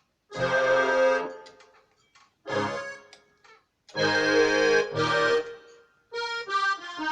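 Casio CTK-3500 electronic keyboard playing its accordion tone: three separate chords, each starting suddenly and then held, followed near the end by a quicker run of shorter notes.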